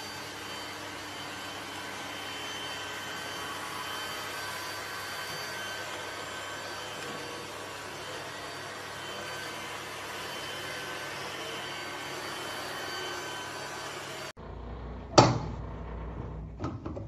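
Robot vacuum cleaner running with a steady whirring hum and a faint high whine. Near the end it gives way to a sudden sharp knock and a few lighter taps as a cat paws at a stainless steel kettle's lid.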